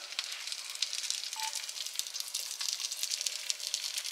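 Food sizzling in a hot pan: a steady crackling hiss. A brief single tone sounds about a second and a half in.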